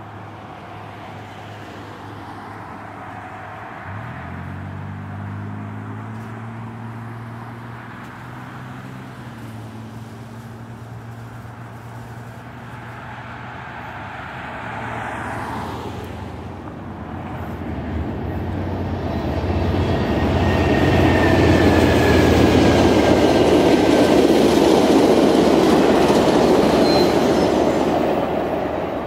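VIA Rail passenger train going by: a low diesel engine note comes in about four seconds in and rises a little as the train draws near. Then the rush and rattle of the coaches rolling past builds to the loudest part in the second half, with a faint thin squeal from the wheels for a moment.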